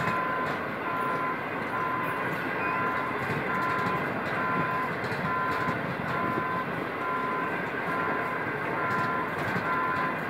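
CNR passenger coaches rolling slowly past on arrival, a steady rumble of wheels on rail. Through it an electronic warning beep repeats about one and a half times a second.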